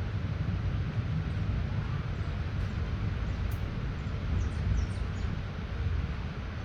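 Light rain falling steadily, under a continuous low rumble. A few short high chirps sound a little past the middle.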